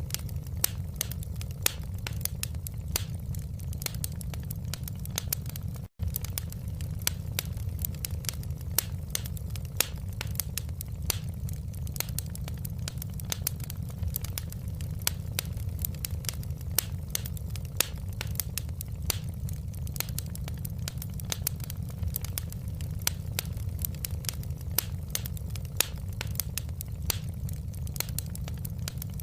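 Wood fire in a fireplace crackling and popping: dense, irregular sharp snaps over a steady low rumble. The sound drops out for a split second about six seconds in.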